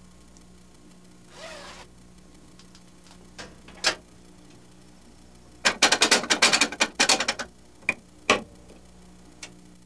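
Top-loading washing machine's cycle-selector dial being turned: a rapid run of loud clicks lasting under two seconds, with a few single clicks before and after. A short rustle comes about a second and a half in.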